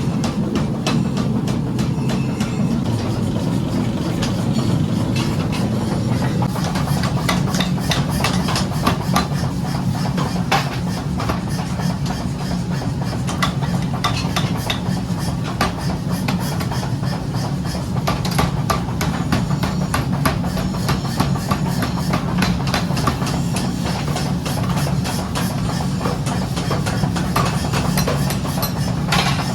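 Steady low drone of workshop machinery running, with frequent irregular sharp knocks and clinks of metal over it.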